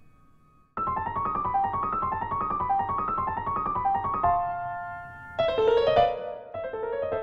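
Piano playing a fast, light passage. After a brief pause, quick detached notes run in a repeating figure, then a chord is held, and a louder phrase begins about five seconds in.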